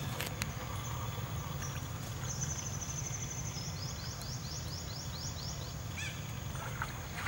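Outdoor ambience with a steady low rumble. From about two seconds in, a bird sings a high-pitched trill followed by a run of quick rising chirps at about five a second, and a short call comes near the end.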